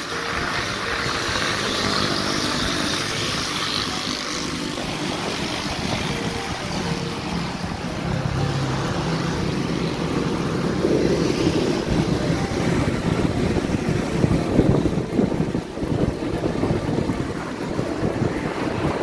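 Road noise from riding along a city street: wind rushing and buffeting the microphone over a steady vehicle drone. The buffeting grows heavier in the second half.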